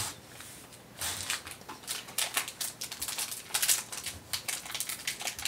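Foil wrapper of a Panini Contenders Draft Picks trading-card pack crinkling and crackling as it is handled and torn open, starting about a second in as a quick, irregular run of sharp crackles.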